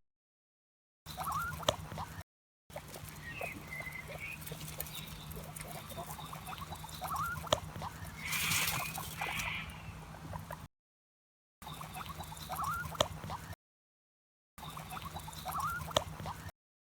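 Guinea pig squeaking: many short rising squeaks, with a louder squeal about halfway through. The sound comes in several pieces broken by brief silences.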